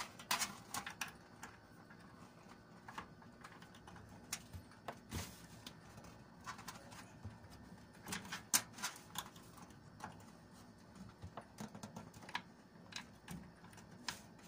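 Scattered light clicks and knocks, a dozen or so at uneven intervals, as computer parts and cables are handled while a desktop PC is being assembled.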